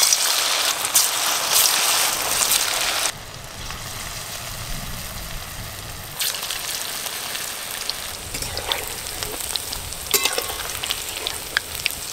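Chicken pakoras deep-frying in hot oil in an aluminium kadai: a loud sizzle for about the first three seconds as the battered pieces go in, then a steady, quieter sizzle with occasional small pops.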